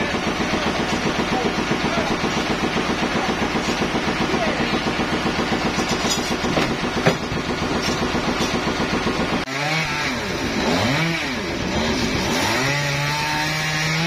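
The sawmill's stationary engine running steadily at idle with an even, fast pulse. About nine and a half seconds in it gives way to a chainsaw being revved, its pitch rising and falling several times.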